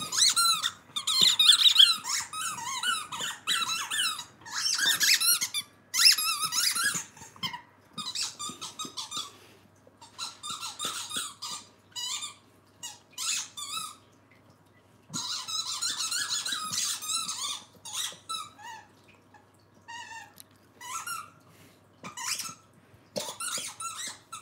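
Squeaky plush dog toy squeaking over and over in short, wavering runs as a Scottish Terrier puppy bites and tugs at it, with a brief lull about halfway through.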